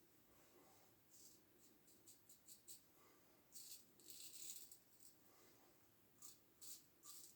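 Faint scraping strokes of a Gem push-button single-edge safety razor cutting through lathered stubble: short quick strokes in small groups, with a longer run of scraping about four seconds in.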